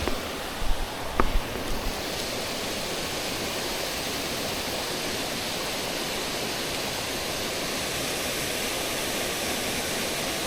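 Stream water rushing steadily over rocks, a continuous noise like a small cascade or rapids, with a few low thumps in the first two seconds.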